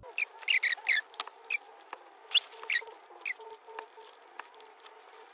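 Close-up eating sounds: chewing a mouthful of a Chipotle bowl, with scattered wet mouth clicks and short squeaks, some dropping in pitch, and a fork picking at the bowl.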